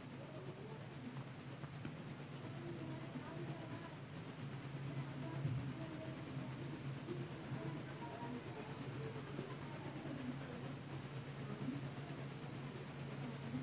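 Insect chirping in a steady run of rapid high-pitched pulses, about seven a second, breaking off briefly twice, over a low steady hum.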